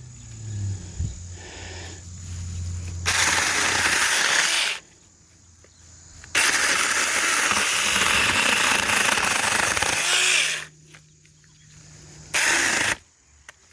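A 4-inch cordless electric mini chainsaw running in three trigger bursts: a short one, a longer one of about four seconds, and a brief one near the end, each starting and stopping sharply. The chain is cutting low and dragging grass in with it, which jams it.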